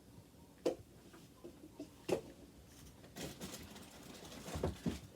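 A few faint, sharp taps and clicks, with light handling noise and a dull low thump near the end.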